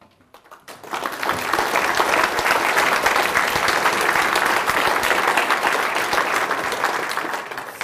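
Lecture-hall audience applauding: a few scattered claps at first, swelling about a second in into steady, full applause that eases slightly near the end.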